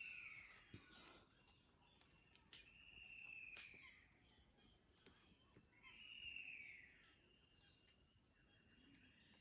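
Faint, steady high-pitched drone of jungle insects, with a bird repeating a single falling call about every three seconds.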